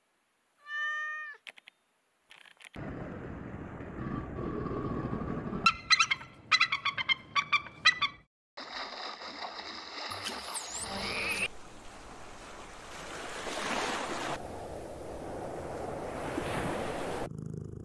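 A domestic cat meows once. A bald eagle then gives a rapid run of sharp, high calls. After that come high whistling calls over a steady wash of sea noise.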